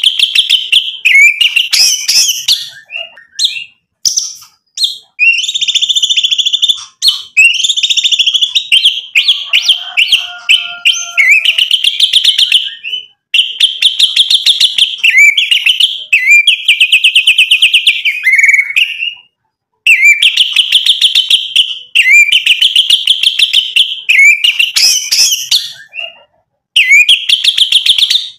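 White-rumped shama (murai batu) singing in full voice: long runs of rapid, rattling trilled phrases and sharp whistles, broken by three short pauses.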